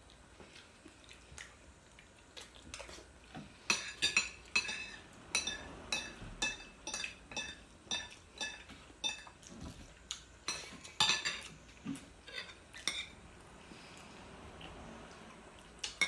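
Metal spoons and forks clinking and scraping against ceramic plates and bowls during a meal: a run of sharp clinks starting a few seconds in, some ringing briefly, thinning out near the end.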